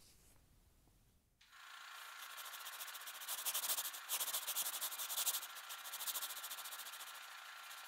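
Sound effect of a seismograph stylus scratching across paper as it draws a trace: a dry, rapid rasping scrape. It starts about a second and a half in and grows louder in the middle.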